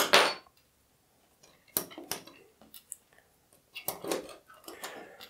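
LEGO Technic plastic pins and beams being handled and pressed into place: a louder clatter at the very start, then a few sharp plastic clicks in small clusters.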